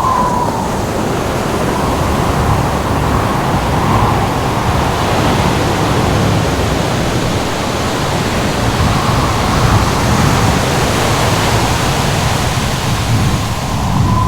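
Steady, loud rush of ocean surf and wind, with a faint wavering wind howl that comes and goes.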